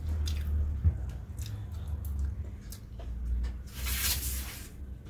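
Fingers squishing and mixing soft, starchy boiled rice on a steel plate, with light clicks of fingertips on the plate and a short hissing scrape about four seconds in.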